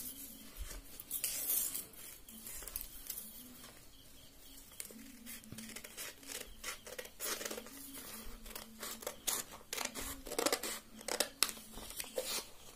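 Scissors cutting through a sheet of paper: a run of irregular snips and paper rustling, densest near the end.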